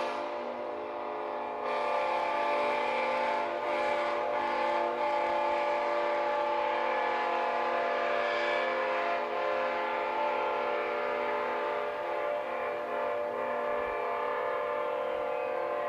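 Multi-chime railroad locomotive air horn blown in one long continuous blast, several notes sounding together and held steady throughout.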